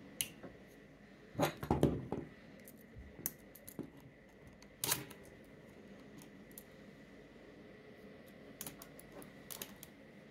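Canon FX 35 mm SLR being handled: scattered sharp mechanical clicks of its controls. There is a louder cluster of knocks and clacks about one and a half seconds in and a single sharp clack about five seconds in. Near the end comes a quick run of small clicks as the film advance lever is worked.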